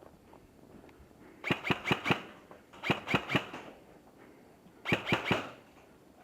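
G&G T91 airsoft electric rifle firing three short bursts of about four shots each, every shot a sharp snap from the gearbox and piston.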